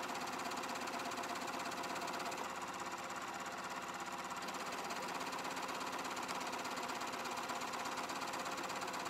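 Janome Memory Craft 9450 computerized sewing machine running steadily as it stitches an automatic buttonhole with the automatic buttonhole foot, played back at double speed.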